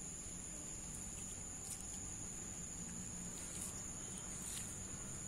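Insects chirring steadily outdoors in tropical greenery, a continuous high-pitched drone, with a few faint ticks from the hearth.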